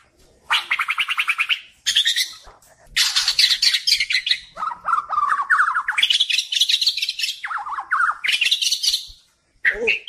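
White-rumped shama (murai batu) singing: a fast trill of rapidly repeated notes, then a long run of varied whistled and chattering phrases, in bursts with short pauses between them.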